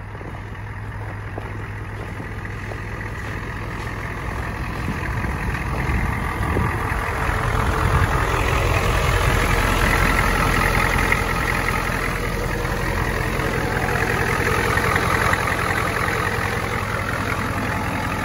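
Ford 7.3 L IDI V8 diesel idling steadily while warming up after a cold start. It grows louder over the first several seconds and then holds steady.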